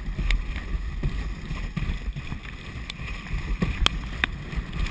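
Dog sled running over packed snow: a steady rumbling hiss of the runners on the trail, with wind on the microphone and a few sharp clicks and knocks scattered through.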